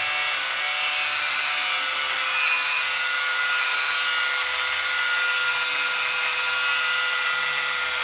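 Electric power tool cutting through the metal of a motorcycle exhaust, running at a steady speed with an even, high hiss over its motor whine.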